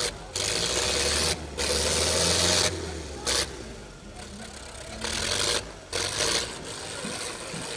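Tractor diesel engines working flat out under heavy pulling load, the nearest a John Deere rearing with its front wheels off the ground. Loud surges of engine noise come and go: two long ones in the first few seconds, then shorter ones later.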